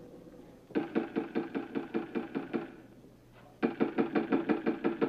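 Rapid knocking on a door, about six knocks a second, in two runs with a short pause between them.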